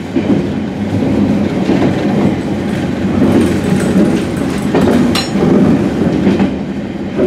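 A San'in Line diesel local train running, heard from inside the carriage: a steady rumble of wheels on rail, with one sharp click about five seconds in.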